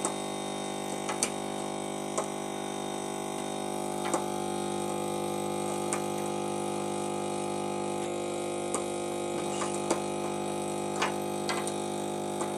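The built-in vacuum pump of a BGA rework station running with a steady electric hum while its vacuum pick-up pen is handled, with a few faint clicks.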